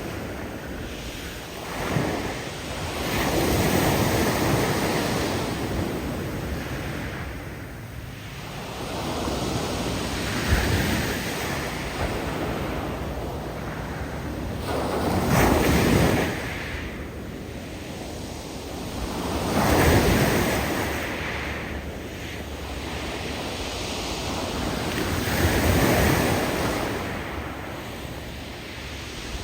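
Big waves breaking on a steep shelf of loose beach rocks, surging in roughly every five seconds. As each wave draws back, the loose rocks tumbling in the surf make a hiss.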